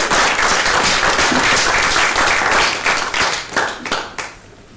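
Applause from a small seated group: many hands clapping together. It thins to a few last claps and stops about four seconds in.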